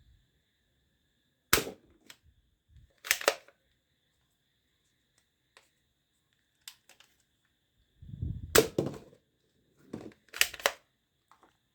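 Toy guns clicking and snapping in short groups: a sharp crack about a second and a half in, a double snap around three seconds, a cluster of rattling clacks around eight and a half seconds, and another double snap near ten and a half seconds.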